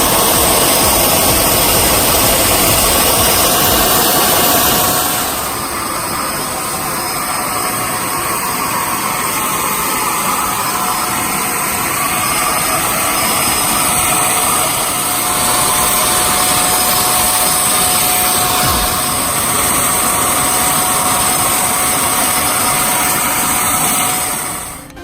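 Electric motor running steadily with a high whine over a loud rushing noise, dropping a little in level about five seconds in and cutting off at the end.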